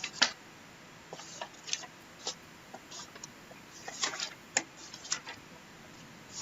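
Irregular light clicks and taps, some coming in quick little clusters, the busiest and loudest cluster about four seconds in.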